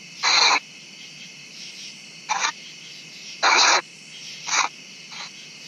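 Smartphone ghost-box app sweeping through radio stations: short bursts of static and chopped sound fragments at uneven intervals over a steady hiss.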